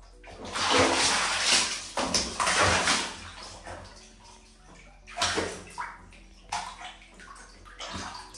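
Water splashing and sloshing in a plastic basin as a young monkey paddles and thrashes in it: almost continuous splashing over the first three seconds, then a few shorter splashes.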